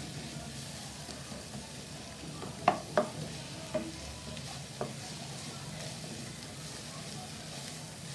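Chopped onions, green chillies and ginger-garlic paste sizzling in hot oil in a kadai while a wooden spatula stirs them. A few sharp knocks of the spatula against the pan stand out about three to five seconds in.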